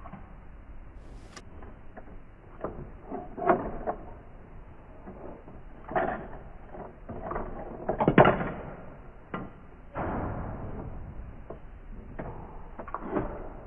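Hard plastic toy-car parts being handled and pressed together: irregular clicks, knocks and scrapes, the loudest cluster about eight seconds in.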